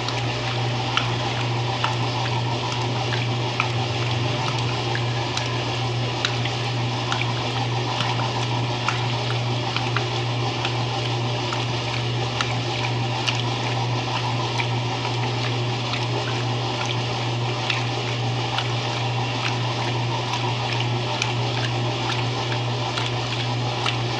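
Electrolux LE08 washing machine running with water in it: a steady low motor hum under continuous swishing and sloshing of water, with small irregular splashes and clicks.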